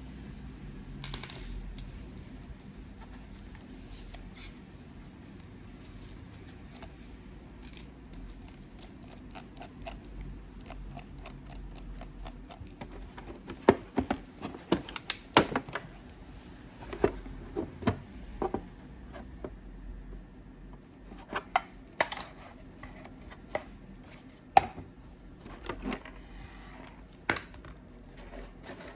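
Small hard objects being handled on a table: a run of light clicks and clinks, sparse at first, then closer together and louder from about halfway in.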